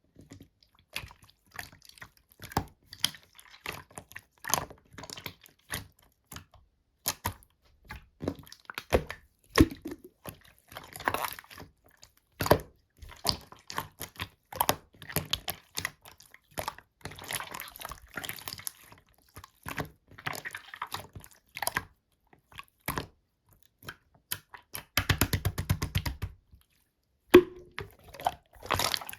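Slime being squished and worked by hand, making irregular sticky clicks and wet pops, with a quick run of crackling pops near the end.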